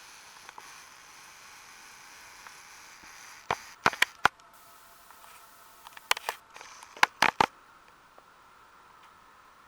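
A handful of short, sharp clicks or knocks in two quick clusters, the first a few seconds in and the second past the middle, over a faint steady hum.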